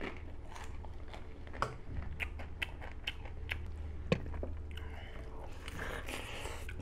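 Close-up eating sounds: chewing and biting, with a string of sharp little crunches and clicks about two a second, and a soft rustle near the end.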